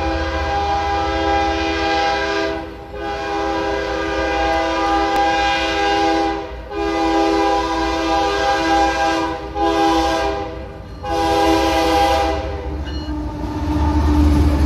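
Diesel locomotive's multi-chime air horn sounding for a grade crossing: long blasts with a short one second to last, cutting off about 13 seconds in. Then the low rumble of the lead GE ES44AC locomotive passing close by.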